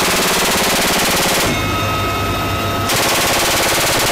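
M134 minigun firing from a helicopter door mount: one long continuous burst that stops about a second and a half in, then a second long burst starting about three seconds in. Between the bursts the helicopter's steady engine whine and rotor hum are heard.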